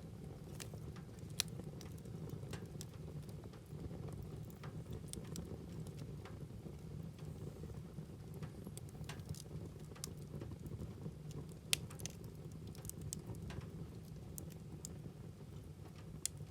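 Wood fire in a fireplace crackling: scattered sharp pops, a few louder than the rest, over a low steady rumble.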